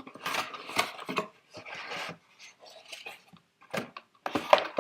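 Earphone packaging being handled and opened by hand: irregular rustling, scraping and small plastic clicks, with a louder clatter near the end.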